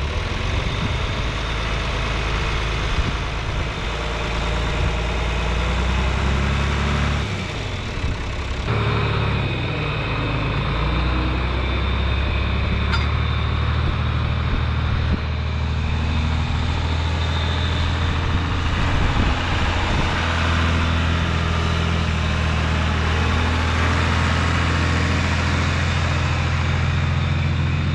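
John Deere 2940 tractor's six-cylinder diesel engine running steadily, its note dropping and changing for a moment about seven to nine seconds in and shifting again around twenty seconds.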